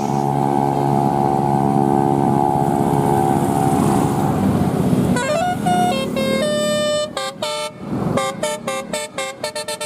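Tour bus 'telolet basuri' musical horn: a long held chord, then from about five seconds in a quick run of short notes playing a tune.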